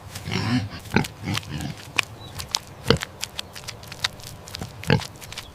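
Domestic pig grunting a few times, followed by a run of short, sharp clicks and snaps.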